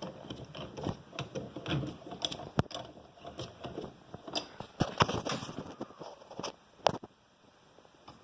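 Small metal bench vise being handled and worked: irregular rattling and scraping of metal parts, with several sharp clicks, going quieter about seven seconds in.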